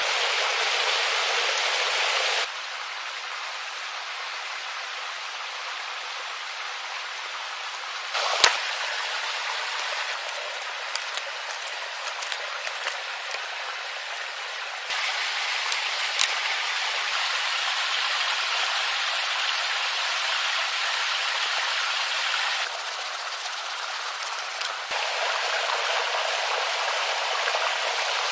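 Steady outdoor hiss, like rain or running water, that jumps up and down in level several times at cuts. A sharp knock comes about eight seconds in, then a scatter of small clicks and snaps, as branches and poles are handled.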